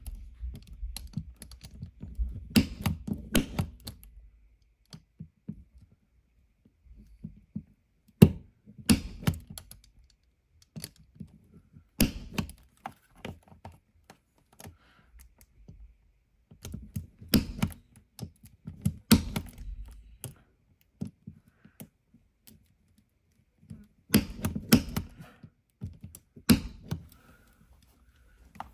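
Sharp clicks and knocks from hand tools working a network data jack at a wall box, in clusters of quick strikes separated by quiet gaps of a second or two.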